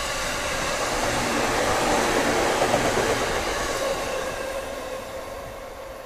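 JR East commuter electric train in orange-and-green stripes running past along the platform: wheel-and-track rumble with a steady whine, growing louder to a peak about halfway through, then fading.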